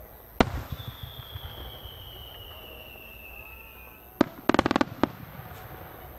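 Aerial fireworks shells: a sharp report about half a second in, then a long whistle falling slowly in pitch for about three seconds as a shell climbs. A little after four seconds come sharp bursts and a fast string of crackles as the shells break open.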